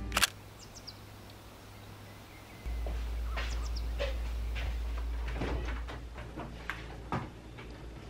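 A clear plastic organizer bin set onto a fridge shelf with a sharp click and a few light plastic ticks. A few seconds in, a steady low hum starts suddenly, with scattered soft taps and clicks of handling over it.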